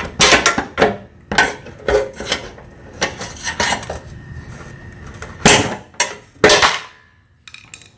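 Screwdriver prying the plastic step pad off a Ford F-150 rear bumper: a string of sharp clicks, knocks and clanks as the brittle plastic clips pop loose and the tool strikes the metal bumper. The two loudest knocks come near the end.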